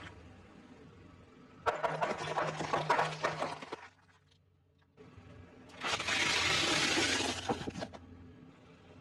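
Shattering and breaking, like glass being smashed, in two bursts. The first is a crackling run of sharp cracks lasting about two seconds. After a second of near silence comes a denser burst of about a second and a half.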